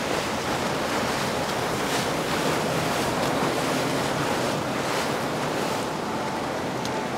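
Steady rushing of wind and water, with a faint low drone from a passing motorboat's engine underneath.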